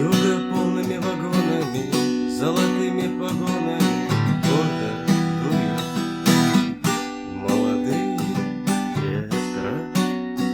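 Acoustic guitar strummed in a steady rhythm, playing the chords of the song without voice.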